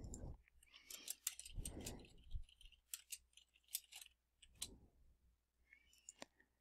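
Faint computer keyboard typing: a quick, irregular run of key clicks as a short line of text is typed, then a pause and a couple of mouse clicks near the end.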